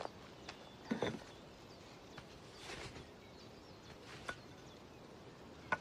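Quiet outdoor background with a few faint, scattered soft knocks and a brief rustle.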